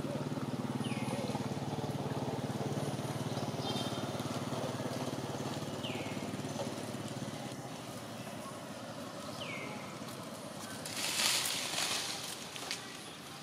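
Outdoor background: a steady low hum that fades away about halfway through, a short high falling call repeating every three to four seconds, and a brief loud rustle near the end.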